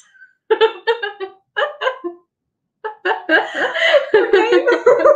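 Two women laughing: short separate bursts of laughter, then longer unbroken laughter from about three seconds in.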